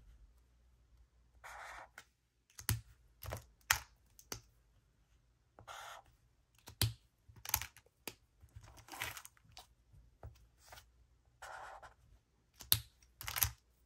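Zebra Mildliner highlighter tip drawn across paper in several short scratchy strokes, each about half a second long, mixed with sharp clicks and taps of the plastic markers being handled and set down.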